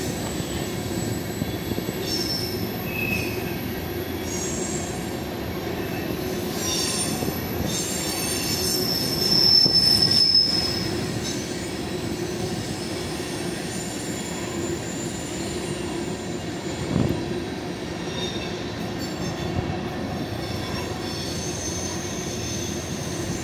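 Freight cars rolling past on the rails, their wheels squealing in high tones that come and go over a steady rumble. The squeal is loudest about ten seconds in.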